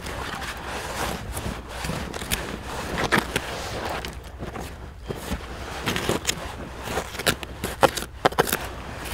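Gloved hands scraping and scooping loose dirt out of a privy pit to free a buried bottle: a gritty rustling with scattered sharp clicks and crunches of grit and small stones.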